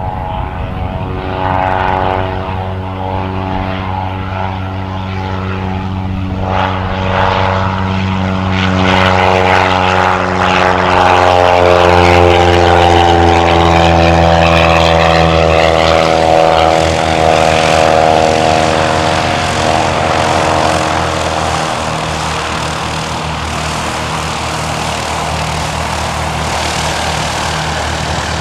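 Cessna Cardinal's piston engine and propeller at full takeoff power as the plane lifts off and passes the listener: a steady drone that grows louder, drops in pitch about halfway through as it goes by, then fades slightly as it climbs away.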